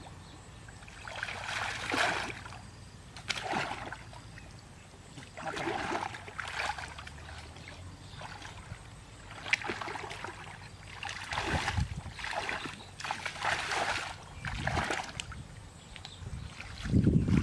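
Muddy water splashing and sloshing as someone wades and gropes with his hands in a shallow pool, in short bursts every second or two. A few low thuds come near the end.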